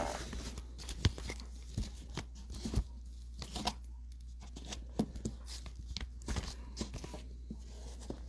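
Trading-card packaging being handled and torn open: irregular crinkling, tearing and small sharp clicks.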